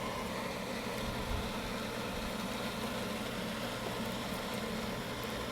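Steady low hum of an electric motor running, with even, unchanging pitch lines.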